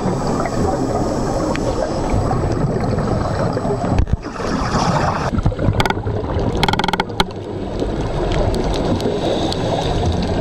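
Scuba diver's exhaust bubbles gurgling and rushing, recorded underwater, with a short break about four seconds in.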